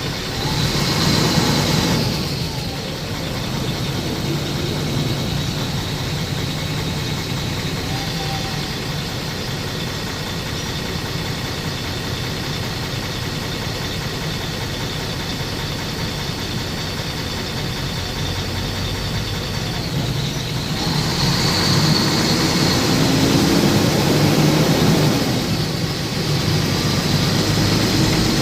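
A running vehicle's steady rumble, swelling louder briefly near the start and again for a few seconds about three-quarters of the way through.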